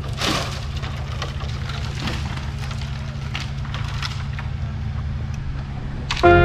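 A large engine running steadily with a low hum, over scattered crackles and snaps of brush branches being dragged across the ground. Music comes in near the end.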